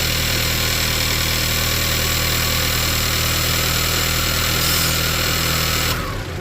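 Volkswagen Tiguan petrol engine idling steadily, after a new ignition coil and spark plugs were fitted to cure a misfire and poor revving. The steady engine note stops near the end.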